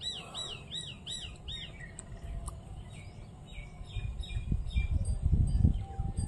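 Birds chirping: a quick run of five repeated arched high notes at the start, then scattered chirps. In the second half a low rumbling noise swells up and becomes the loudest sound.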